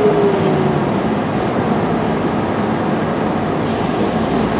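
Mercedes-Benz O405 bus running along the road, its engine and drivetrain noise heard steadily from inside the passenger cabin, with a short falling whine near the start.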